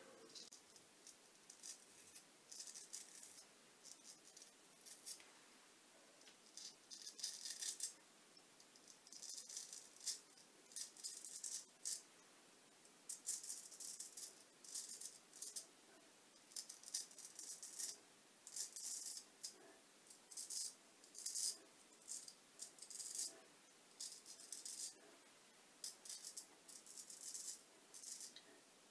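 Straight razor shaving lathered beard stubble: short, faint scraping strokes, one after another in quick runs with brief pauses.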